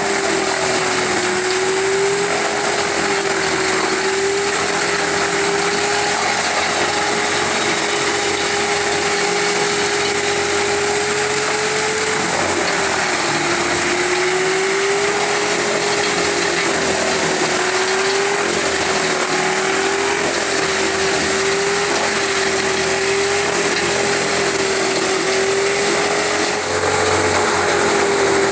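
A wood chipper and a hydraulic excavator running together at working speed while willow branches are fed in: a continuous engine drone with a steady whine that wavers slightly in pitch.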